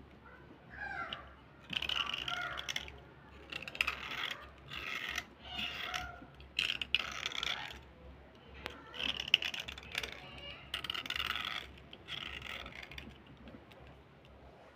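A snap-off cutter blade scraping along a slate pencil in repeated short strokes, about ten of them, each with a gritty, slightly squeaky rasp, shaving chalky powder off the pencil; the strokes grow fainter near the end.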